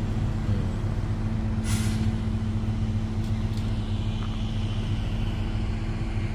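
Heavy diesel engine running at a steady pitch, with a short hiss of air about two seconds in, typical of a truck's air brakes.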